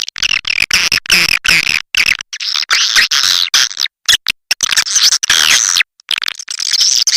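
Recorded edible-nest swiftlet calls used as a swiftlet-house lure: dense, fast, high twittering chirps mixed with rapid clicking, broken by a few short pauses.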